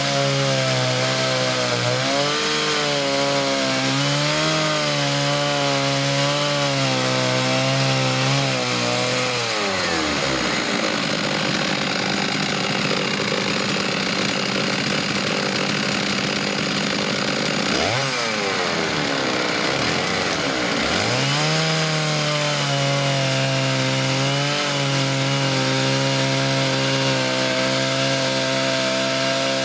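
Two-saw chainsaw mill, an orange Stihl powerhead at one end of the bar and a second chainsaw at the other, running under load through a log, the engine note wavering. About a third of the way in the engine note drops away and the sound turns lighter and noisier; a little past halfway it rises sharply twice, then settles back into the steady cutting note.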